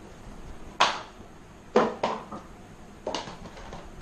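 Unboxing handling: a box's packaging and accessories being moved and set down on a hard surface, three sharp knocks about a second apart with a smaller clack between.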